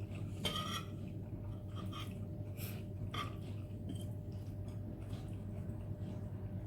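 Close-up eating sounds of someone chewing spicy Korean instant noodles: scattered short wet smacks and slurps, the strongest about half a second in, over a steady low hum.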